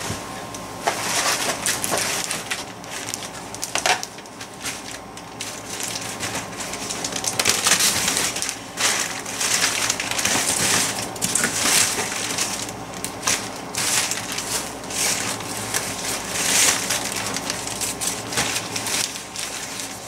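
Packing material being crumpled and handled, an irregular crinkling and rustling that comes in bursts of varying loudness.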